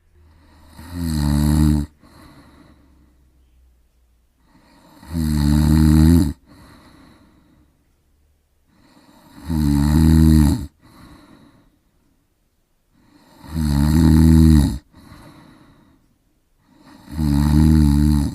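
A person snoring: five loud snores about four seconds apart, each swelling up and stopping abruptly, then trailing off into a softer breath.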